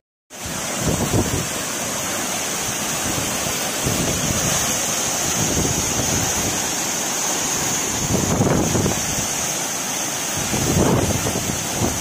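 Steady rush of a tall waterfall cascading down a rock face, heard close to the falling water, after a moment of silence at the very start.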